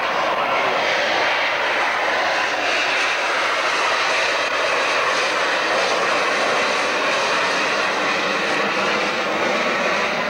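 Sea Harrier's Rolls-Royce Pegasus jet engine, a loud, steady roar as the jet hovers on its downward-pointed thrust.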